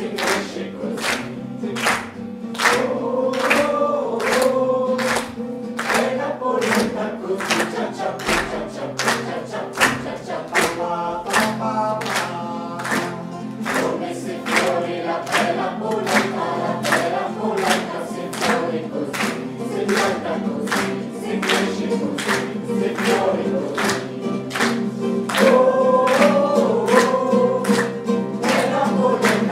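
A cast sings a lively chorus song in unison to acoustic guitar accompaniment, while hands clap steadily in time to the beat.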